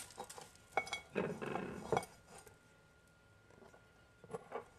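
A metal fork clinking against ceramic dishes, with soft handling sounds as a seitan cutlet is dipped in egg wash. A few light clinks come about a second in and again near the end, with a quiet spell between.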